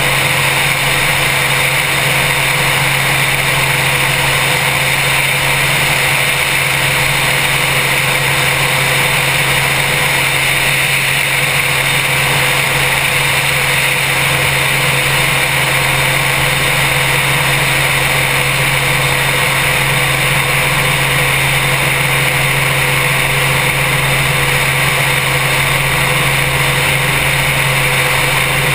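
Helicopter in steady forward flight: constant engine and rotor noise with a low hum and a broad rush of air, unchanged throughout. Heard through a camera mounted on the outside of the fuselage.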